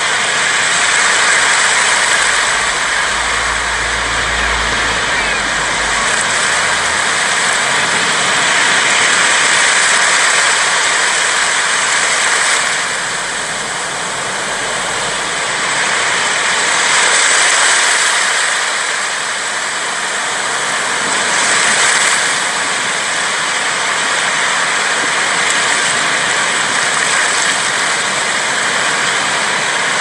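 Sea waves washing onto a sandy beach: a steady rush of surf that swells and eases every few seconds.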